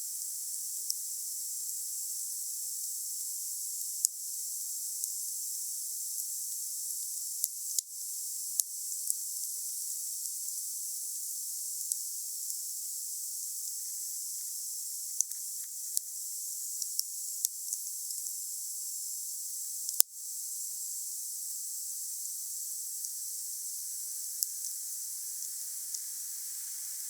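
Wood fire burning with a steady high hiss and scattered sharp crackles and pops, the loudest pop about twenty seconds in.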